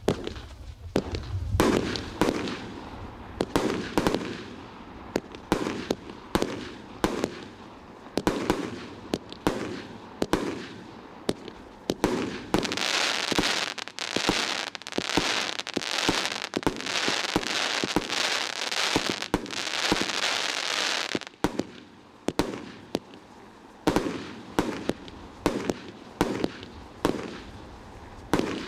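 'Vanilla Sky' fireworks going off, with sharp bangs about once a second. In the middle a dense crackling runs for about eight seconds before the single bangs return.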